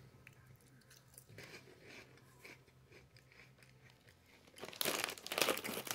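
Light, crunchy corn snack (ketchup-seasoned chicken-drumstick crisps) being chewed: faint scattered crunches at first, then loud, dense crunching from about four and a half seconds in.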